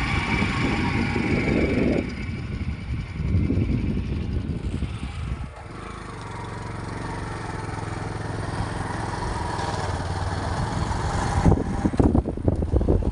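A small vehicle engine running steadily with a low hum, with irregular rumbling surges over it at the start and again near the end.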